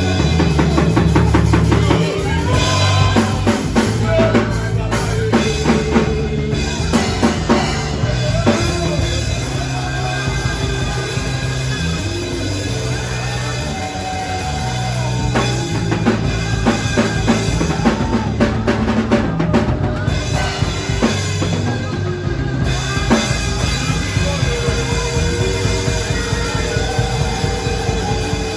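Band music with a drum kit (bass drum and snare) keeping a steady beat.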